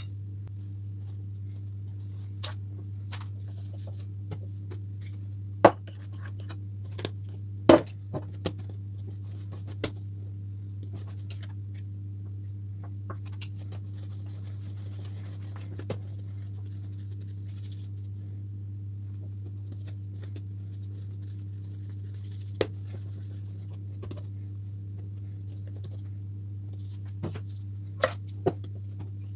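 Scattered clinks and knocks of a metal fork against a glass mixing bowl, and of hands working dough on a table, over a steady low hum. The louder knocks come about six and eight seconds in and twice near the end.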